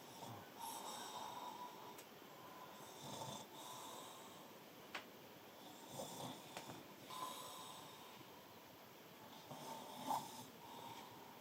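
A man snoring in his sleep, a faint snore every few seconds.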